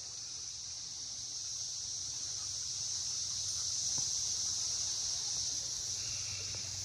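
A steady, high-pitched chorus of insects in the woods, droning without a break.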